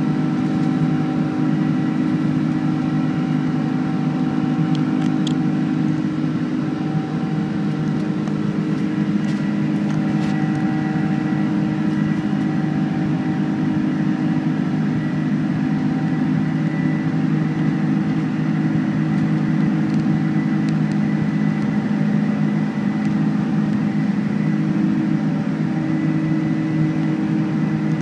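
Boeing 747-400 turbofan engines heard from inside the cabin during the climb after takeoff: a steady drone with several held humming tones over a rush of air.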